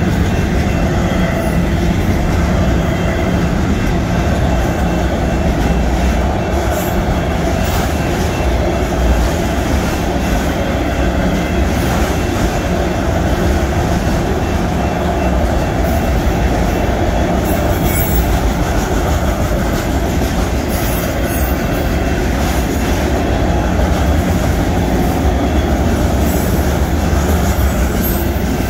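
Freight train passing close by at a grade crossing: a steady rumble and rattle of wheels on the rails as double-stack container cars and then enclosed autorack cars roll through.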